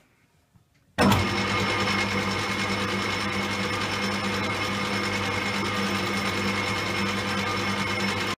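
Metal lathe switched on about a second in, then running steadily, its motor and headstock gearing giving a constant hum with a whine as it spins a workpiece on a mandrel in the chuck.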